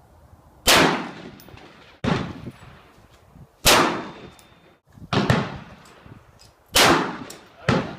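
Gunshots at a shooting range: about six single shots, roughly one every second to second and a half, each a sharp crack with a short echoing tail. Three are louder than the others.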